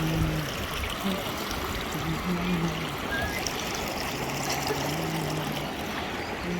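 River Ure rushing over rocky shallows below a waterfall: a steady, even rush of flowing water.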